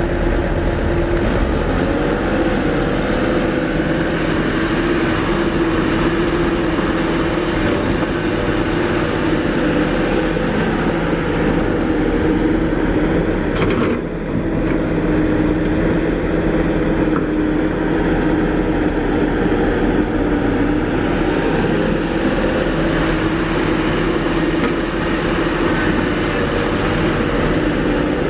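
Kobelco SK350 excavator's diesel engine running steadily under working load, its pitch wavering slightly as the hydraulics work. A single sharp knock sounds about halfway through.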